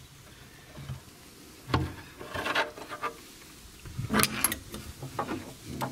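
Handling noise on a plywood subwoofer box: a screwdriver and loose screws knocking and scraping against the enclosure while the speaker is worked free. It comes as a few short knocks and rubs, spaced about a second apart.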